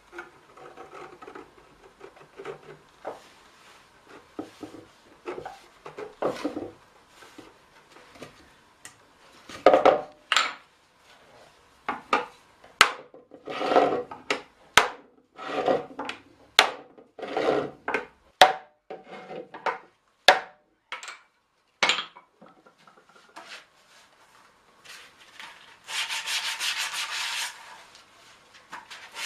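Steel barrel hoop being driven down onto a small oak barrel with a hammer and driver. The blows are irregular: light taps at first, then heavy knocks and sharp metallic strikes from about ten seconds in to about twenty-two seconds. Near the end comes a couple of seconds of steady scraping noise.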